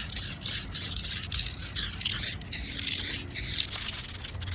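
Aerosol can of cream beige spray paint hissing in a series of short bursts as paint is sprayed onto a plastic console trim piece.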